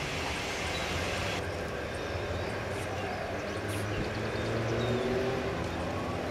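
Steady low rumble of background traffic, with a few faint, thin bird chirps over it.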